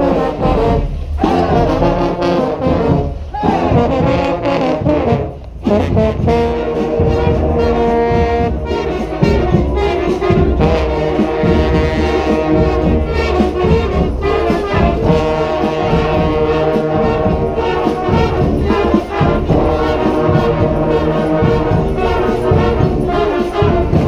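Street brass band of trombones, saxophones, trumpets and sousaphone playing a loud up-tempo tune. Short punchy phrases with brief breaks in the first few seconds give way to long held chords from about six seconds in.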